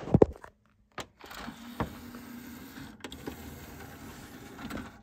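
A few sharp clicks and knocks, then the motorised DVD tray mechanism of a Toshiba SD-V391U DVD/VCR combo whirring steadily for about four seconds as the disc tray slides open, with a click partway through, stopping suddenly at the end.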